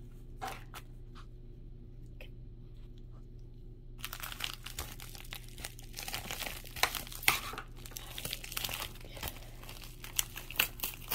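Plastic poly mailer envelope being crinkled and torn open by hand. A few light taps come first, then from about four seconds in a dense rustling crackle with sharper tearing noises scattered through.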